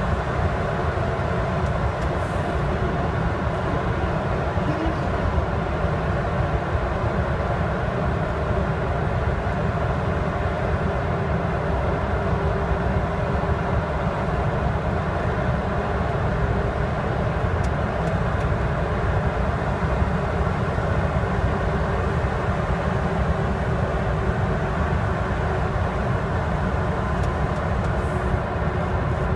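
Steady drone of a 2008 Mercedes-Benz Axor truck's diesel engine with tyre and road noise, heard inside the cab while cruising at an even speed.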